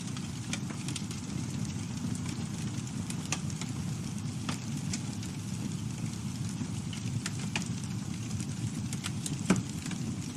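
Campfire burning: a steady low rumble of flames with irregular crackles and snaps from the wood, and one louder pop about nine and a half seconds in.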